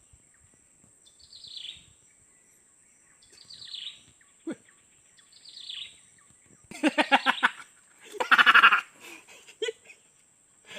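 Animal calls: a bird gives three short, falling notes a couple of seconds apart, then come two loud, quavering bleat-like calls from a larger animal.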